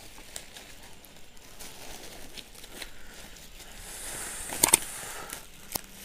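Faint crinkling and rustling of a thin plastic bag as it is handled around a small artificial flower pot. About two-thirds of the way in comes a short swoosh with a sharp click, and another click near the end: the sound effects of an on-screen subscribe-button animation.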